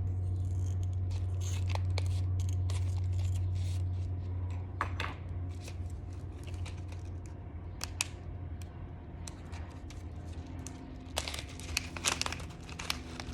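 Packaging being opened by hand: crinkling and tearing with scattered small clicks and crackles, busiest about five seconds in and again near the end, over a steady low hum.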